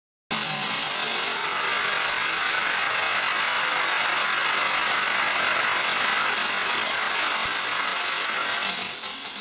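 A large field of dominoes toppling: a dense, continuous clatter that starts abruptly about a third of a second in and begins to thin out near the end as the last rows fall.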